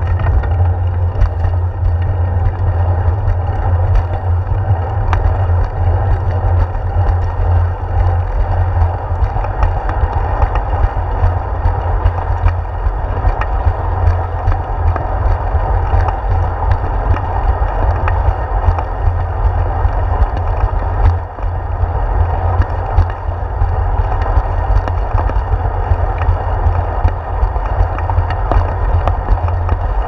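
Steady, loud low rumble of wind and ride vibration on a handlebar-mounted GoPro Hero 4 while a bicycle rolls along a concrete path, with tyre noise and small faint clicks over the bumps.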